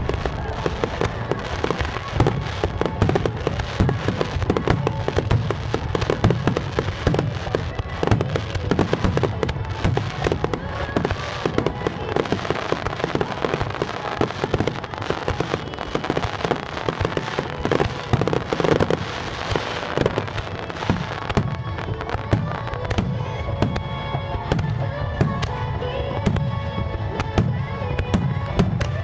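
Fireworks bursting in a dense, rapid barrage, one burst after another. Music plays along, standing out more clearly in the last third.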